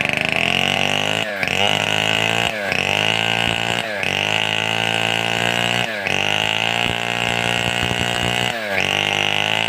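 Large two-stroke chainsaw running at high revs, its pitch dipping briefly and recovering about five times as the throttle eases or the chain takes load.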